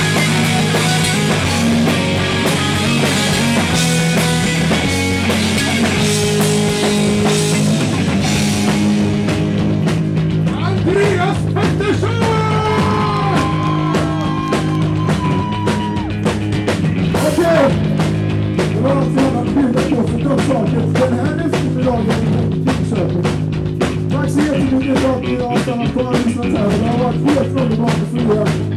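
Rock band playing live: drum kit, electric guitar and electric bass, with some singing.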